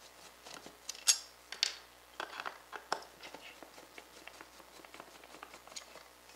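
Screwdriver backing small screws out of the metal mounting plate on a rotisserie motor: scattered clicks and short scrapes, busiest in the first three seconds and sparser after.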